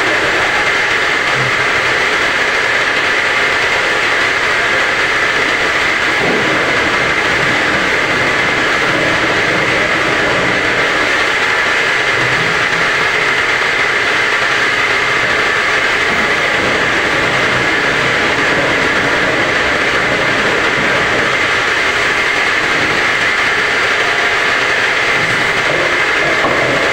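Home-assembled round-gallon washing machine running steadily, a continuous machine noise with a constant high whine over a hiss.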